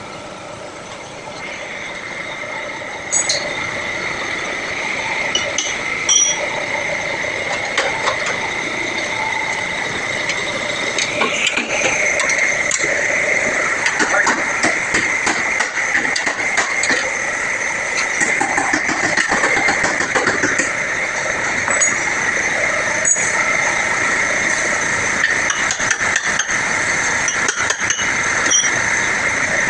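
Vehicle body-repair workshop noise: a machine running with a steady high tone, over which metal is knocked and tapped many times, the knocks growing busier about a third of the way through.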